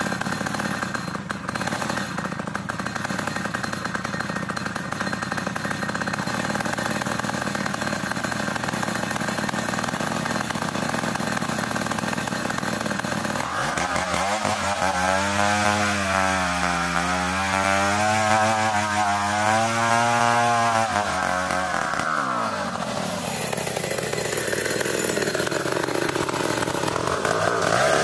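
Stihl chainsaw ripping lengthwise through a dense ulin (Borneo ironwood) log, the engine running under load. About halfway through, the engine note stands out as a clear pitch that wobbles up and down for several seconds, then glides up and down near the end.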